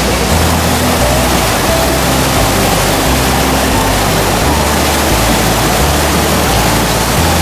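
Steady rush of a mountain stream flowing over rocks, with background music under it: a low bassline that steps from note to note and faint held notes above.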